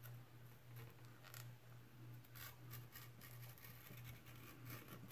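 Faint scraping strokes of a thin bookbinder's skiving knife push-cutting a bevel into the edge of thick 12 to 14 ounce veg-tan leather, several short strokes, over a low steady hum.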